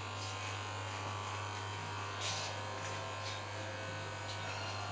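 Electric hair clippers buzzing steadily as they cut a man's hair, a constant low buzz with no breaks.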